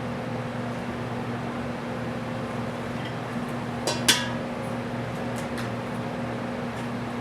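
A steady low hum, with two sharp knocks close together about four seconds in, the second louder: eggs being cracked on the edge of a mixing bowl.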